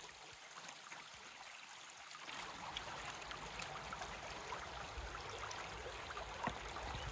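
Water poured from a plastic cooler jug into a shallow river: a faint trickling, gurgling pour that starts about two seconds in, over the steady sound of the running stream.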